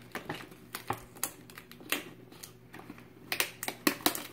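Scattered light clicks and taps from small plastic toy pieces being handled, a few at first and then a quick cluster near the end.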